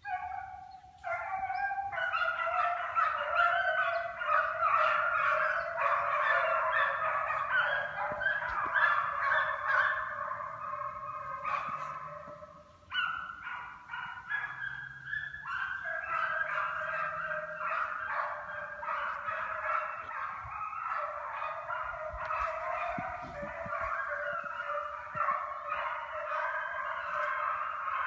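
A pack of hunting hounds baying together in full cry while running game, many voices overlapping. The chorus starts abruptly, dips briefly about halfway, then carries on.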